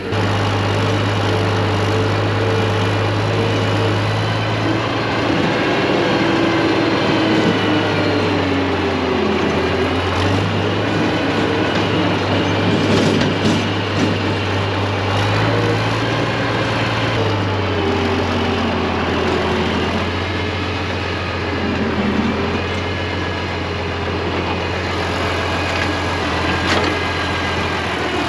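International Harvester 856 tractor engine running steadily as the tractor is driven along a dirt lane, with a strong low engine note throughout.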